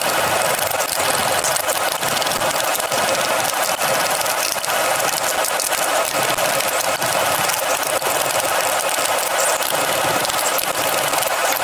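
Screwdriver with a Phillips bit backing out the screws of a laptop's plastic bottom cover: a continuous, even, buzzy mechanical whirr.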